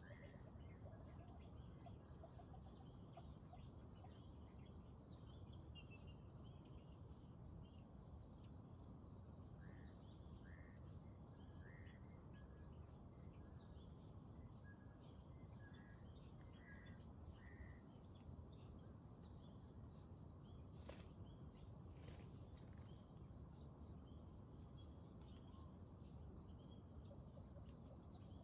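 Faint outdoor ambience: an insect trills steadily in a fast pulsing rhythm, with scattered short bird chirps and two sharp clicks about three-quarters of the way through.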